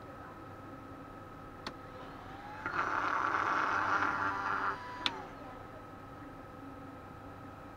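Small cooling fan from an Eltek Flatpack power supply, with a lump of plasticine stuck on as a trial balancing weight, spinning up with a rising whine, whirring loudly for about two seconds, then winding down. A sharp click comes before it and just after it.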